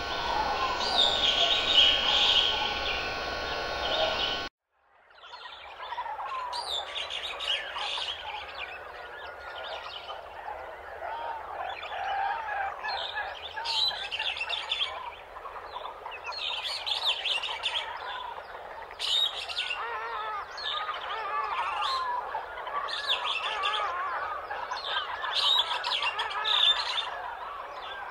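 Recorded birdsong: a dense chorus of many birds chirping and warbling without pause, played over the hall's speakers. Before it, about four and a half seconds in, the music playing cuts off abruptly.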